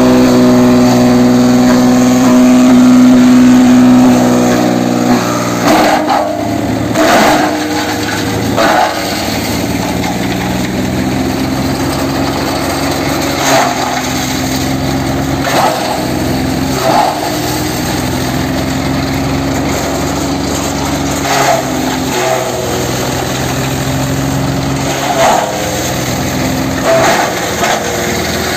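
Mahindra Yuvo 575 tractor running its PTO-driven shredder: a steady engine-and-rotor drone with a strong whine for the first five seconds that then drops in pitch and level. After that, about ten short crunching bursts at irregular intervals as coconut fronds are fed in and pulverized.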